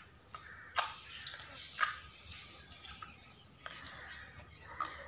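Glitter slime being squeezed and kneaded by hand, making soft squelching with scattered small pops and clicks, two sharper pops about one and two seconds in.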